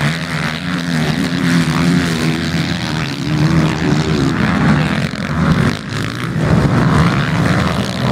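Several MX1 motocross bikes racing, their engines revving up and down as they work through the corners and whoops, with a brief drop in loudness about six seconds in.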